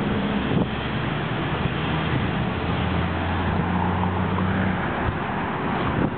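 Wind rushing over the microphone, with a steady low engine hum underneath.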